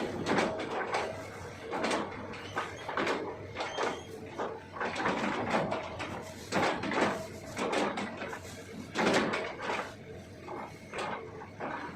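Hitachi ZX200-5G excavator chipping felled oil palm trunks: irregular crunching and scraping as the bucket chops into the wood, a burst every second or so.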